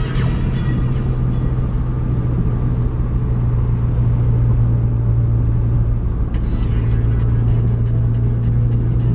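Honda Fit with newly installed MFactory 4.928 final drive gears, heard from inside the cabin while driving at a steady speed. A steady low engine drone runs under road noise, and a brighter hiss joins about six seconds in.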